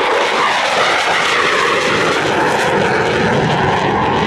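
Airplane engine sound effect, a loud, steady drone, dubbed over the toy fighter jet.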